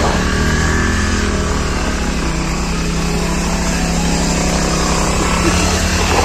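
Motorcycle engine running steadily while riding on a rough dirt road, with a fast pulsing low rumble and heavy wind noise on the microphone.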